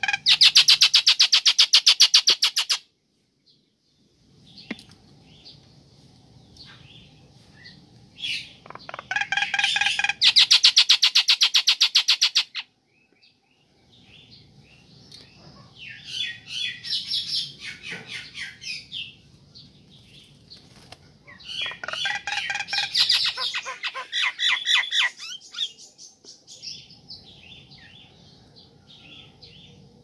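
Caged common myna calling: two loud bouts of fast, even rattling, one at the start and one about ten seconds in, then two bouts of mixed chirps and squawks in the second half. It is a female's call to a male.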